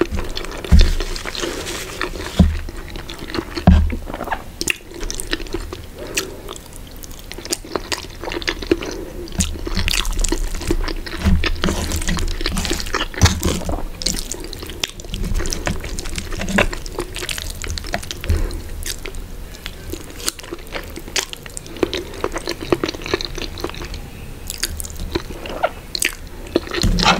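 Close-miked chewing of spaghetti carbonara with sausage: a steady stream of small mouth and lip clicks, with a few dull thumps in the first four seconds.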